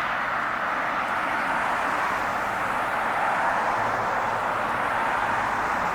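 Steady roar of heavy road traffic, an even unbroken wash of tyre and engine noise.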